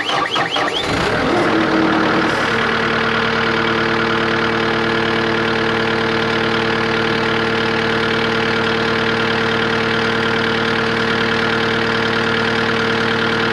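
Cat 259D compact track loader's four-cylinder diesel engine starting: it fires and runs unevenly for about two seconds, then settles into a steady idle, turning its freshly refitted alternator and A/C compressor belts.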